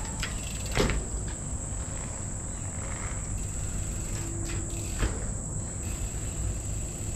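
Steady high insect chirr, like crickets, with a low rumble beneath and two sharp knocks, about a second in and about five seconds in.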